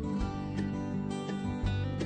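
Background music led by a strummed acoustic guitar, with regular strums over sustained low notes.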